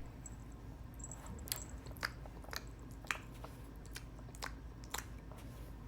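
Faint crunchy chewing: a string of soft clicks and crunches about twice a second over a low steady hum.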